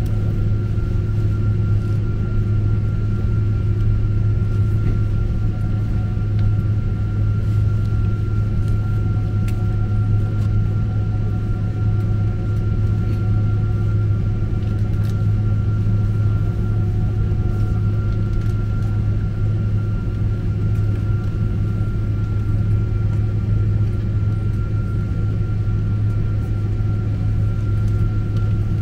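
Steady low rumble in the cabin of a Boeing 777-200 airliner taxiing to the gate after landing, with a thin steady whine above it.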